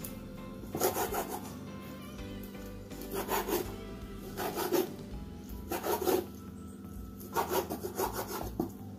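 A chef's knife sawing through raw chicken breast on a wooden cutting board, the blade scraping and rubbing the board in short bursts of strokes about six times.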